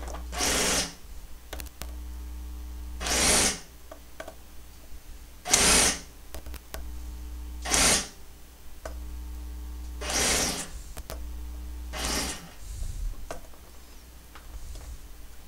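Homemade solder vacuum: a reciprocating saw driving a ball pump, with a steady low hum and six short hissing bursts of suction, about one every two seconds, as solder is drawn off a circuit board in short bursts.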